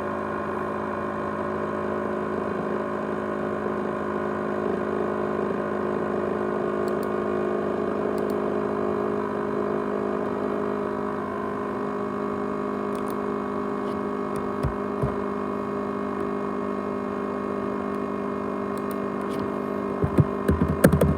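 ASUS X543UA laptop with a 500GB hard drive running with a steady multi-tone whirring hum, the noise its owner likens to a jet engine. Two short knocks come about fifteen seconds in, and a quick cluster of knocks just before the end.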